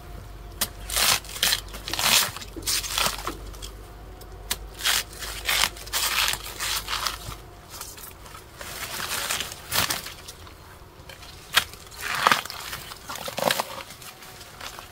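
Wild banana stem being stripped and split by hand and knife: fibrous sheaths tearing and crunching in short, irregular bursts.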